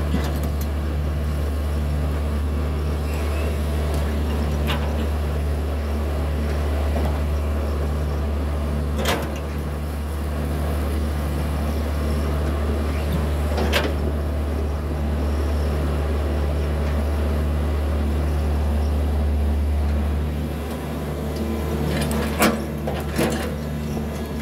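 Hitachi 110 hydraulic excavator's diesel engine running steadily under load while it digs and swings. A few sharp clanks cut through it, two of them close together near the end.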